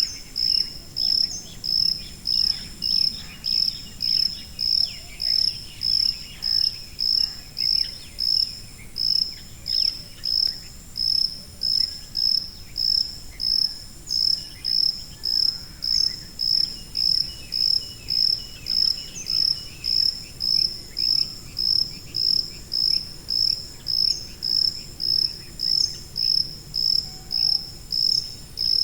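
A cricket chirping steadily: an even, high-pitched chirp repeating about three times every two seconds without a break.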